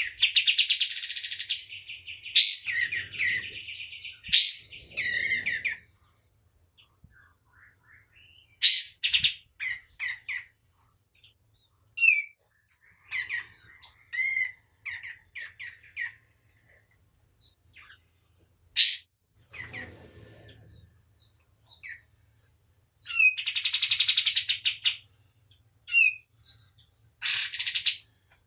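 Kapas tembak (a bulbul) singing: rapid rattling trills and short, sharp whistled notes broken by pauses, with the longest trills at the start and again about two-thirds of the way through.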